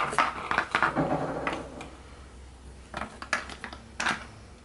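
Ribbon-wrapped wooden dowel rods and wooden clothespins clattering and tapping against a plastic tray as they are set down. A busy run of knocks comes first, then a few single taps.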